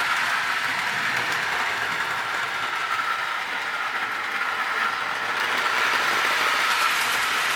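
Lionel toy 0-4-0 locomotive running steadily on its track, pulling log cars with die-cast trucks: a steady motor whine over the rumble of wheels on the rails. It gets a little quieter in the middle and louder again toward the end.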